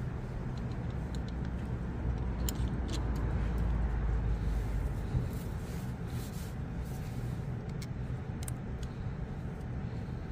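Engine of a Hanil farm power carrier running steadily, a little louder in the first half, with a few sharp clicks over it.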